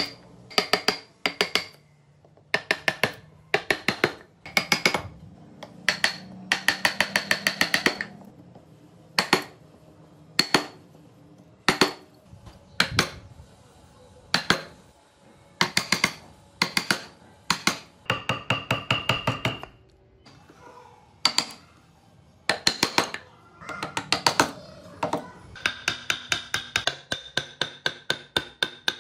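Steel carving chisel driven into wood by quick mallet taps, in runs of several strikes a second with short pauses between, each strike giving a brief metallic ring.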